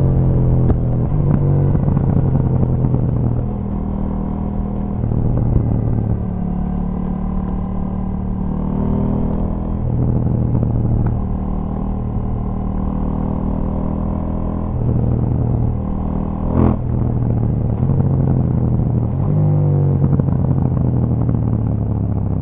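KTM 790 Duke's parallel-twin engine through its stock exhaust, engine speed rising and falling again and again, with scattered pops and crackles as the revs drop. One sharp, louder pop comes about two-thirds of the way through.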